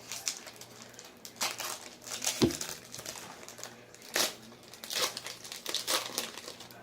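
Trading card pack wrappers crinkling and tearing as packs are opened and the cards handled, in irregular crackles. There is a single dull knock about two and a half seconds in.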